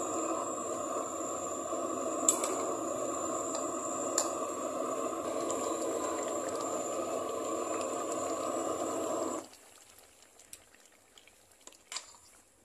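A pot of curry cooking hot on the stove: a steady rushing hiss that cuts off suddenly about nine and a half seconds in. A metal spoon clinks sharply against the aluminium pot twice during the stirring, with a few faint clicks after the hiss stops.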